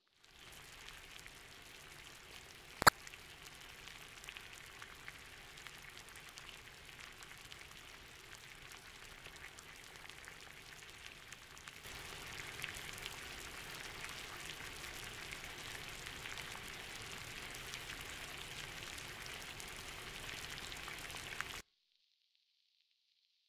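A pot simmering on a stovetop: a steady bubbling, crackling hiss that gets louder about halfway through and cuts off suddenly near the end. A single sharp click about three seconds in.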